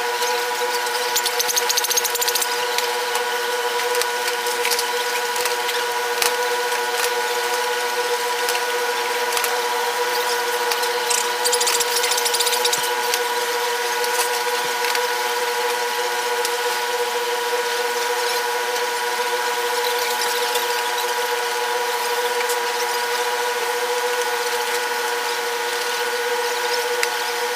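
Mechanics' tools at work: scattered clicks and clinks, with two short bursts of high hiss, one about a second in and one about eleven seconds in. A steady multi-tone mechanical hum runs underneath.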